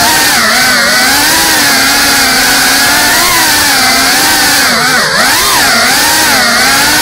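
GEPRC CineLog 35 cinewhoop's electric motors and ducted propellers buzzing at high speed, the pitch rising and falling with the throttle. About five seconds in the pitch dips briefly as the throttle is cut, then climbs again.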